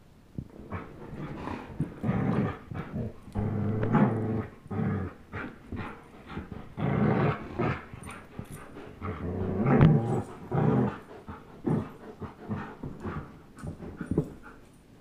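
A German Shepherd and an Old English Sheepdog play-growling as they tug and wrestle over a rope toy. The growls come in repeated low bursts of about a second each, with scuffling between them.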